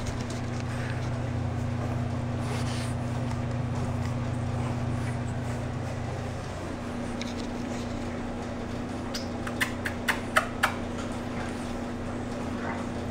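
Steady low mechanical hum, with a quick run of sharp clicks about ten seconds in.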